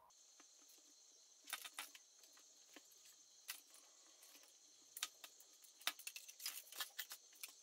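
Faint scattered taps, clicks and rustles of styrofoam plate pieces and a craft knife being handled and trimmed on a cutting mat, over a faint steady high-pitched whine.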